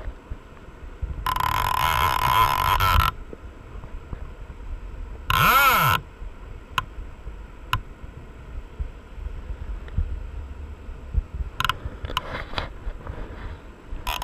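Steady rush of river water pouring over a weir, with wind buffeting the rod-mounted camera in two loud spells, about a second in and again near the end. A short tone that rises and falls sounds near the middle, and a few sharp clicks follow as the fly reel is handled.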